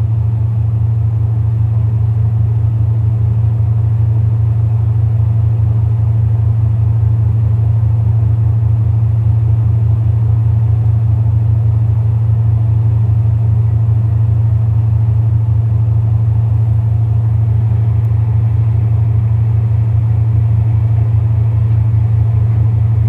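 Ship's onboard machinery running with a steady, loud low drone.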